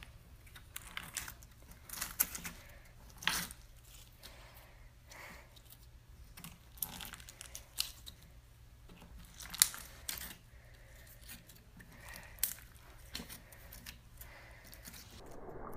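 Glossy green slime squeezed and kneaded by hand, giving irregular sharp sticky pops and crackles, the loudest a little over halfway through.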